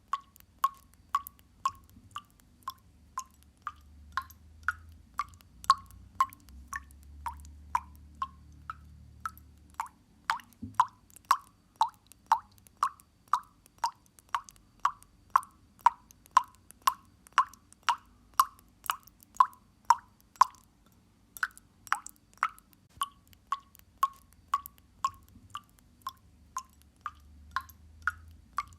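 Water dripping steadily, about two drops a second, each a short plop ringing briefly, over a faint low hum.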